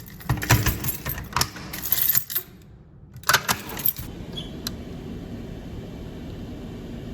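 Metallic jingling and clattering in several bursts over the first four seconds, then a steady low background noise.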